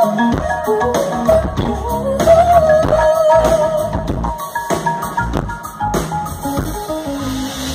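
Live pop-rock band playing an instrumental passage, with a steady drum-kit beat, electric guitar and a melodic lead line.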